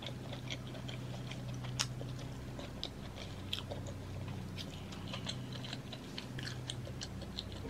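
A person chewing food close to the microphone, with many small wet mouth clicks and one sharper click about two seconds in, over a steady low hum.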